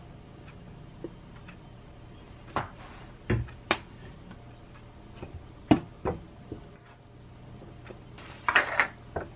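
Scattered sharp clicks and knocks of a wooden spoon and a small syrup bottle against a glass dessert bowl as a yogurt bowl is put together, with a short rustling scrape near the end as strawberries are set in. A faint steady hum runs underneath.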